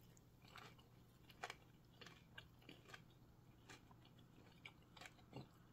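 Faint chewing of a crunchy cornflake-crusted fried ham and cheese sandwich: a few soft, scattered crunches, otherwise near silence.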